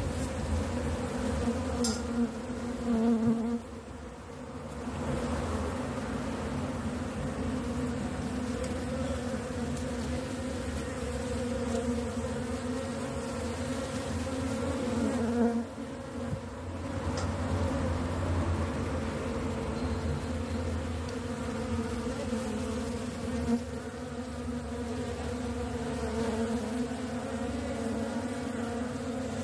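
Honey bees buzzing around an open hive: a steady hum that swells briefly a few times as bees fly close.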